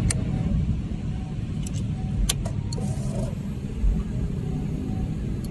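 Sport motorcycle engine idling steadily through its exhaust, a low even rumble, with a few light clicks about two seconds in.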